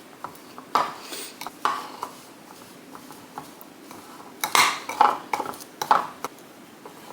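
Utensils knocking and clinking against a bowl and dishes while the cinnamon-roll filling is mixed: scattered sharp clinks, loudest in a cluster a little after the middle.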